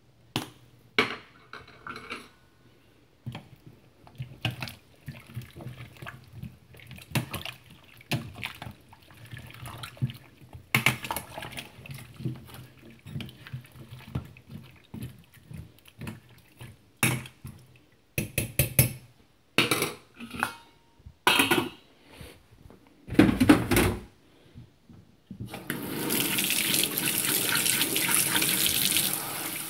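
Scattered knocks and clicks of handling in a kitchen, then, near the end, a tap running steadily into a stainless steel sink.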